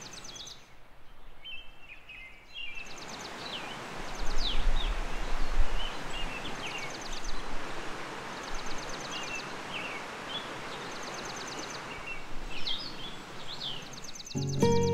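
River water rushing steadily, starting about three seconds in, with small birds chirping and trilling over it. Birdsong alone is heard at first, and music comes back in near the end.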